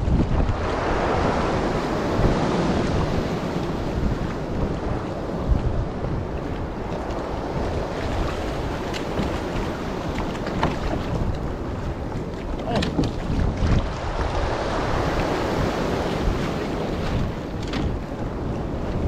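Wind buffeting the microphone over choppy sea, with waves washing around the kayak and a few light clicks.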